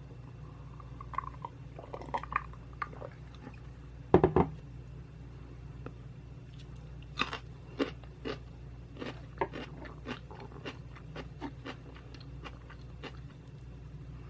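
Close-miked chewing of rice and soy-braised beef, with wet mouth clicks and smacks coming every half second or so. A short, much louder burst comes about four seconds in.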